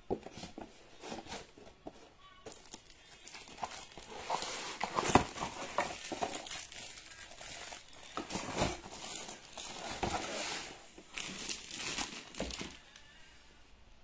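Clear plastic packaging bag crinkling and rustling in irregular bursts as it is handled and pulled open by hand, dying away shortly before the end.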